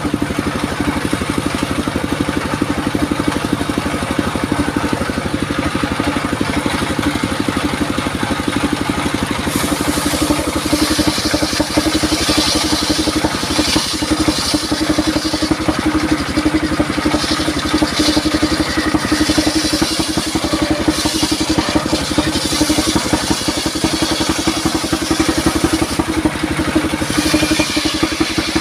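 Engine-driven circular saw running steadily, its engine beating evenly under a steady hum. From about ten seconds in, the blade cuts durian wood in repeated passes, each adding a harsh high hiss.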